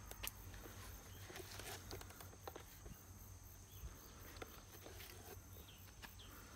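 Faint rubbing and scattered light clicks of a microfibre cloth being wiped over a car's wet side mirror and door glass, over a thin steady high tone.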